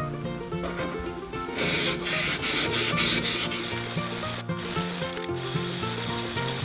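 Japanese kanna plane blade rubbed back and forth on a wet whetstone: quick, rhythmic wet scraping strokes, loudest a couple of seconds in, as the iron is sharpened. Quiet background music underneath.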